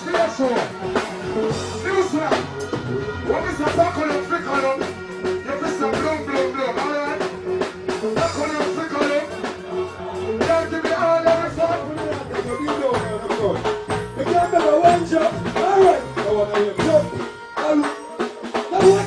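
Reggae/dancehall music played loud through a stage sound system, with a steady drum beat and a melody line over it.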